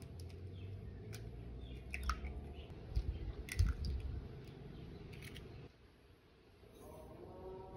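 Eggshells being cracked and pulled apart by hand over a glass bowl: a handful of sharp cracks and crackles in the first five seconds as the shell breaks and the egg drops in.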